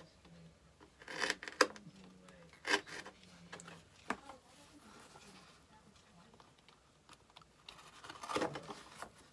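Razor knife blade drawn through thick leather on a wooden board: a few short rasping cuts, about a second in, near three seconds, and a longer one around eight seconds.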